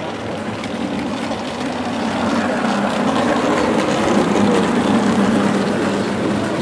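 Electric model steam locomotive running along the layout track: a steady motor hum and wheel rumble that grows louder as it comes close, peaking about four to five seconds in.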